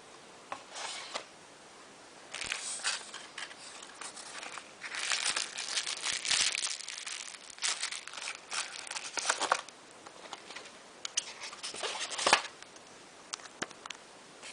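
Irregular crinkling and rustling handling noise in bursts, with a few sharp clicks; the loudest click comes near the end.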